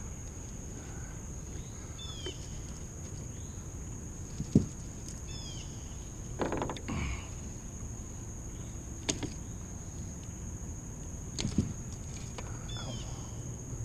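A steady high insect drone with short falling bird chirps repeated several times. Scattered knocks and thumps from handling gear in a small fishing boat; the sharpest comes about four and a half seconds in.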